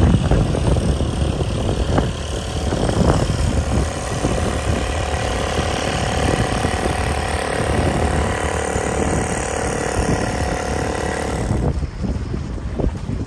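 Small outboard motor on a passing open dinghy running at a steady pitch, dropping away suddenly about twelve seconds in. Wind buffets the microphone throughout.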